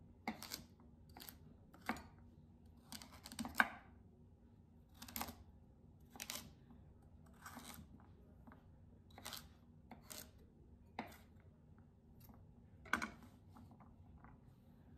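Chef's knife slicing through a peeled carrot and knocking on a wooden cutting board, single cuts about one a second at an uneven pace, stopping near the end.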